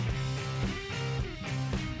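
Background instrumental music with guitar.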